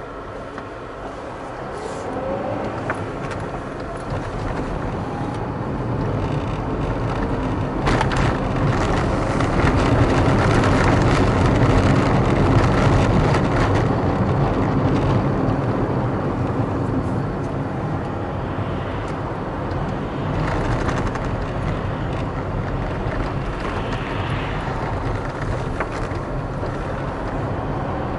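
Car driving on city streets, heard from inside the cabin: engine and tyre noise grows louder over roughly the first ten seconds as the car picks up speed, then settles to a steady cruising level.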